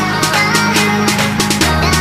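Electronic background music with a steady beat of about four drum hits a second over a bass line that shifts lower about one and a half seconds in.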